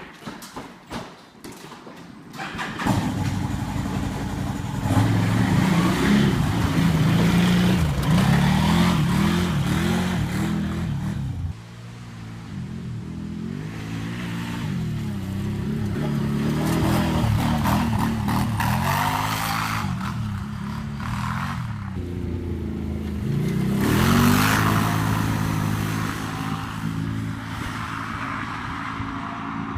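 Can-Am four-stroke engine coming in about three seconds in, then running with its pitch rising and falling again and again as it is revved.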